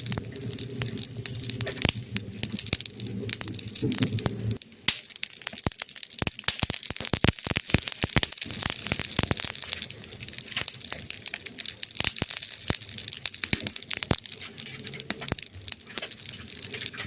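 Campfire crackling, with frequent sharp pops and snaps over a steady hiss. A low rumble runs under it for the first four seconds or so, drops away, and comes back near the end; the loudest snap is about five seconds in.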